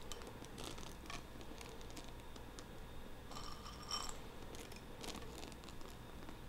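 Semi-sweet chocolate chips being sprinkled into a baking pan: faint, scattered light clicks and rustles.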